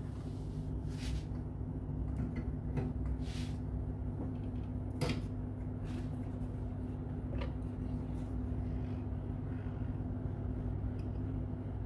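Hot air rework gun blowing steadily with a low hum while it heats a phone board's metal shield can to desolder it, with a few light clicks scattered through.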